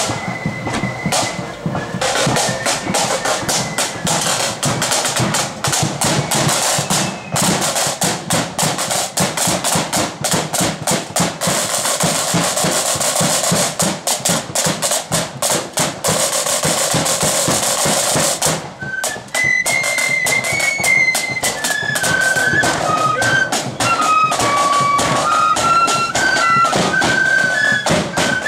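Marching flute band in the loyalist blood-and-thunder style: rope-tensioned side drums, bass drum and cymbals beat out a march with a long, loud drum roll. About nineteen seconds in, the flutes come in with a melody over the drums.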